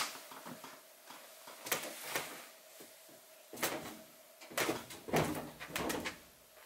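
A sharp door click, then a run of knocks and scuffs, loudest about five to six seconds in: a camper's entry door and a person stepping down its steps onto dirt ground.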